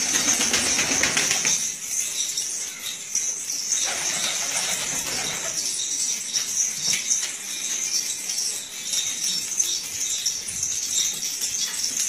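Pigeons flapping their wings in two flurries, one at the start and one about four seconds in, over a steady high-pitched hiss.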